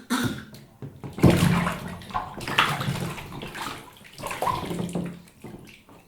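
Bath water splashing and sloshing as a baby plays in the tub, a string of splashes with the loudest about a second in, then smaller ones fading toward the end.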